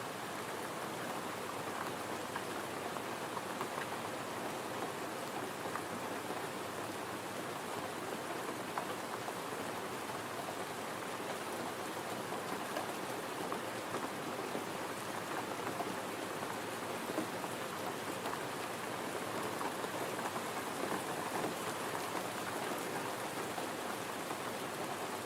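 Gentle rain falling steadily, an even wash of drops with no let-up.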